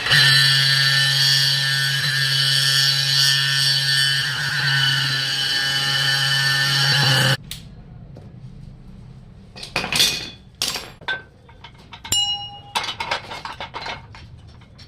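A machine runs with a loud, steady hum and cuts off suddenly about seven seconds in. It is followed by scattered sharp metal clinks and knocks, like tools and metal parts being handled.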